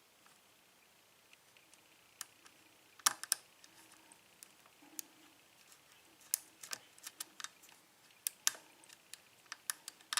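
Scattered sharp metal clicks of a lock pick and tension wrench working the pins inside a Burg Wächter padlock's keyway.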